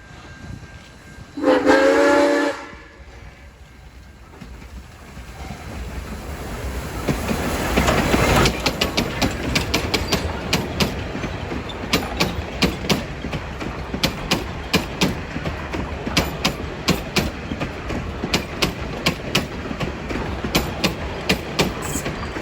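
Rx-class steam locomotive's whistle sounds once for about a second, a chord of several tones. The train then approaches and runs past, its rumble building and the carriage wheels clicking over the rail joints in quick, uneven succession.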